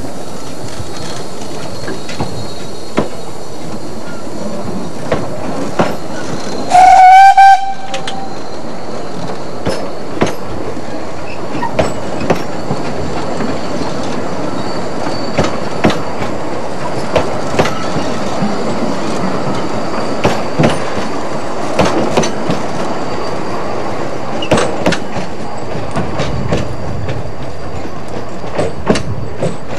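Narrow-gauge steam train pulling out: about seven seconds in, one loud blast of about a second on the locomotive's whistle. Around it the coaches roll by with a steady rumble and irregular clicks of the wheels over the rail joints.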